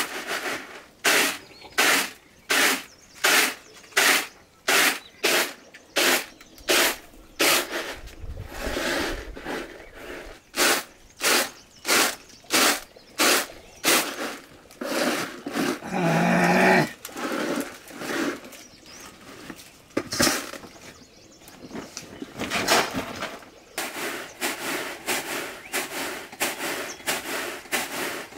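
Rhythmic chopping strokes, about one and a half a second, pausing about halfway through where a short pitched call is heard, then resuming more quickly near the end.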